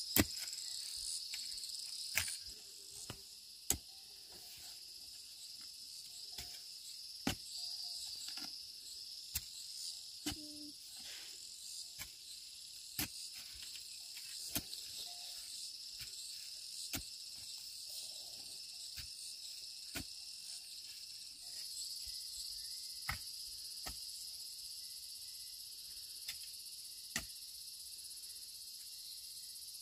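Steady, high-pitched insect chorus, with sharp knocks about every one to two seconds.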